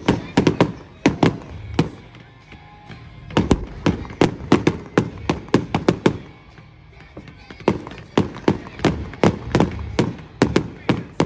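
Fireworks display barrage: rapid bangs and cracks from exploding shells, several a second, easing off for a moment about two seconds in and again around six to seven seconds before picking up once more.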